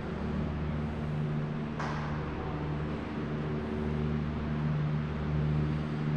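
Steady low machine hum made of several constant tones over a background hiss, with one short knock about two seconds in.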